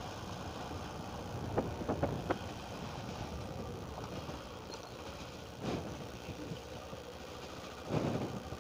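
Small motorcycle engine running at low speed on a rough dirt road, picked up by a phone's microphone, with a few brief knocks and bumps as the bike rides over the potholes.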